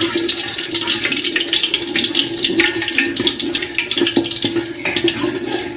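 Ghee melting into hot mustard oil, sizzling and crackling in an aluminium pot while a flat spatula stirs it and scrapes the bottom. A steady low hum runs underneath.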